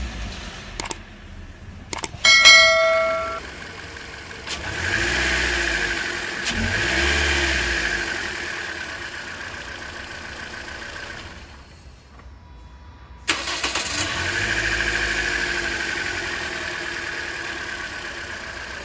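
Toyota Corolla engine running and revved twice, rising and falling back, with a brief beep before the revs. The engine sound fades out near the middle and comes back abruptly, then runs steadily.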